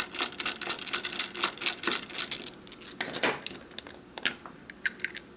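Rapid small clicks and scrapes of a small screwdriver turning a screw in the plastic back cover of an RVS wireless hitch camera. After about two and a half seconds the clicks thin out to a few scattered ones as the cover is worked loose, and they stop about four seconds in.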